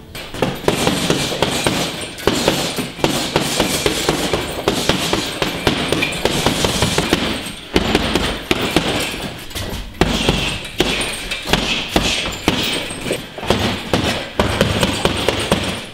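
Boxing gloves punching a hanging heavy bag in fast flurries, several thuds a second, with short breaks about eight and ten seconds in.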